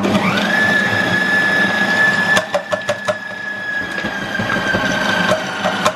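Compact Cook Elite kitchen robot's motor and chopping blade spinning up to a steady high whine while it chops raw vegetables, with a few sharp knocks from around the middle onward. The whine sags slightly near the end.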